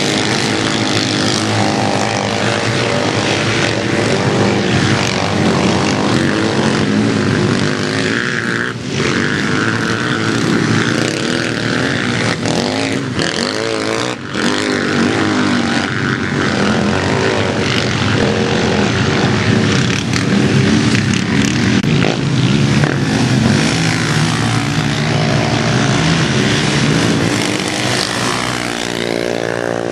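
Several racing quad (ATV) engines running hard together, their overlapping pitches rising and falling continually as they rev and ease off around the track.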